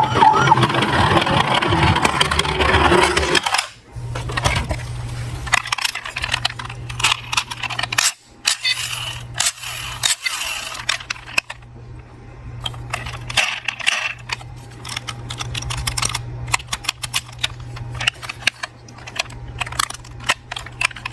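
Small diecast metal toy cars clinking and clattering, many short sharp clicks at irregular intervals, over a steady low hum.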